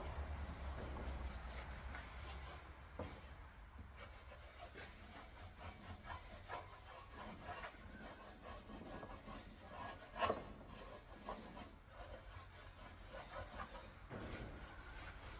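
A rag wet with lacquer thinner rubbing over a wire-brushed steel panel in irregular wiping strokes, cleaning it to a bare, oil-free surface before paint. One sharper, louder stroke comes about ten seconds in.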